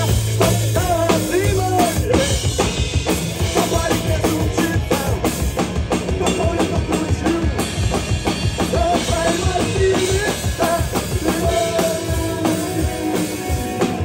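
Tama drum kit played fast and hard, with kick drum, snare and cymbals, along with a pop song backing track from loudspeakers whose melody carries over the drums.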